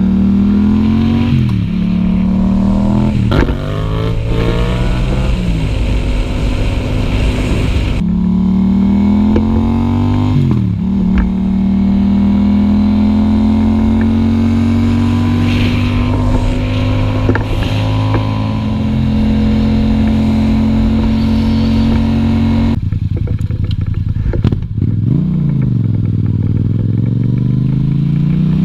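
Yamaha MT-07 (FZ-07) parallel-twin engine through an Akrapovič exhaust under way, pulling through the gears: the note climbs and drops sharply at each upshift in the first ten seconds or so, then holds a steady pitch at cruise. About 23 seconds in it falls away as the bike slows, then climbs again near the end.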